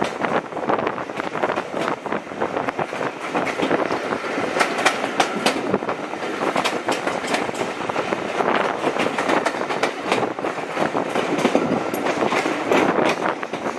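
Passenger coaches running along at speed, heard from a carriage window: a steady rumble of wheels on rail with frequent sharp clicks of wheels clattering over the rail joints. Around the middle another train passes close by on the adjacent line.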